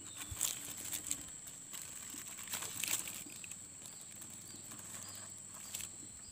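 Clear plastic grafting strip and a black plastic polybag crinkling in soft, sporadic rustles and clicks as hands wrap a seedling graft, over a steady thin high-pitched tone.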